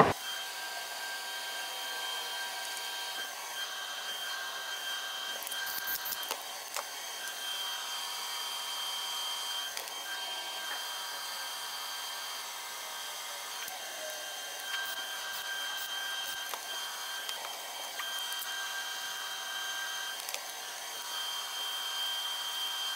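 Steady workshop background hum with a thin high whine and hiss, and a few faint clicks and taps of hand tools on the engine block.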